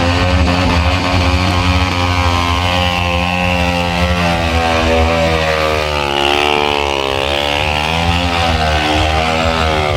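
Motorcycle engine running hard, its revs rising and falling continually.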